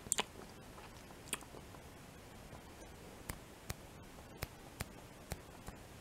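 Close-miked wet mouth sounds of licking and sucking a chocolate umbrella: lip and tongue smacks. There is a quick cluster of clicks at the start, one about a second later, then single sharp smacks about every half second through the second half.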